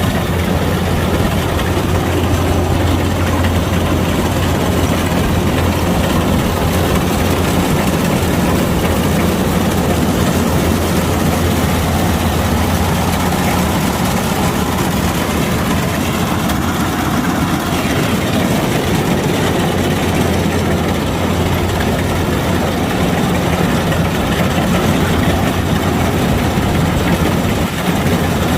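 Kubota DC-105X rice combine harvester's diesel engine running steadily, a continuous deep drone.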